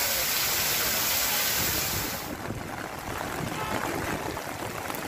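Heavy rain and running water on a flooded street: a steady, even hiss. About two seconds in it cuts suddenly to a quieter, duller rush of water.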